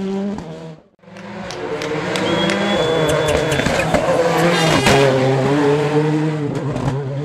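World Rally Car turbocharged four-cylinder engines running hard, the pitch rising and falling through gear changes, with a cluster of sharp pops around the middle. The sound cuts out briefly about a second in, then comes back with another car.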